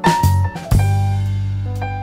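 Instrumental background music with drums and a held bass line.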